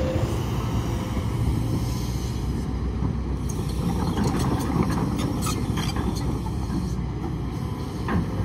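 Kobelco hydraulic excavator's diesel engine running steadily at work, with scattered clicks and knocks of stones and soil as the bucket digs, most of them in the middle of the stretch and a few near the end.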